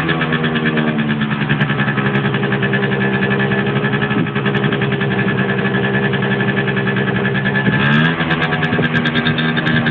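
Malaguti F12 scooter's stock Minarelli two-stroke engine running through a Gianelli Next exhaust. The revs drop at the start, hold steady, and rise and fall in one short throttle blip about eight seconds in.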